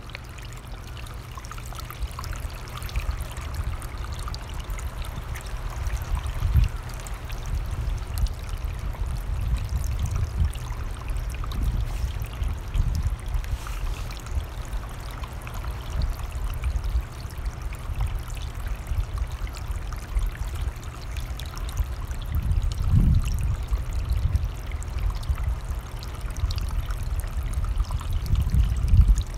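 Running mountain stream, a steady rush of water, with low wind rumble on the microphone swelling in gusts, the strongest near the end.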